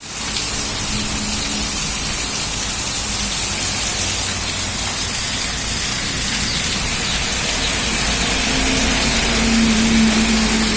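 Heavy rain pouring steadily, with a low wind rumble under it. A faint steady hum comes in near the end.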